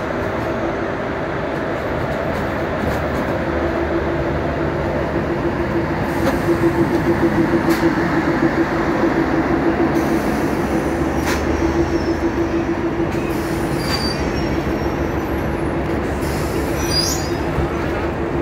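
A passenger train pulling slowly into the station along the platform: a steady rumble and drone of the train running past. It swells with a rhythmic pulsing partway through, has a few sharp clicks, and gives a short high squeal near the end.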